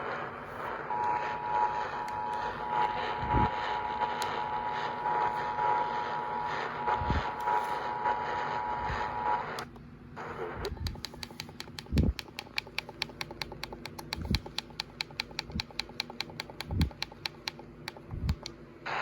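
EAS attention signal: the two-tone 853/960 Hz alert tone, held steady for about eight seconds over a hissy background before cutting off. After that comes a fast, even ticking with a few low thumps.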